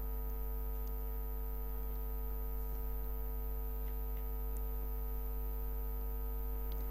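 Steady low electrical hum with a stack of even overtones, the mains hum of the recording setup, unchanging throughout, with a few faint ticks.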